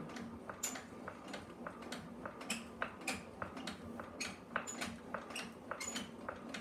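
Pottery kick wheel turning slowly to twist a nylon line: irregular light clicks and ticks, a few a second, with a short high squeak now and then over a faint steady hum.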